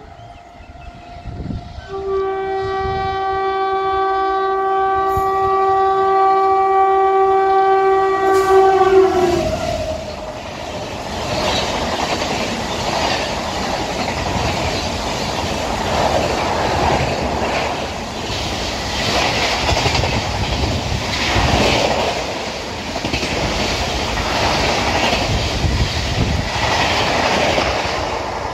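WAP-7 electric locomotive approaching at about 125 km/h and sounding one long horn blast of about seven seconds, starting about two seconds in, whose pitch drops as the engine passes. The train's LHB passenger coaches then rush past with a loud rushing roar and a rhythmic clatter of wheels over rail joints.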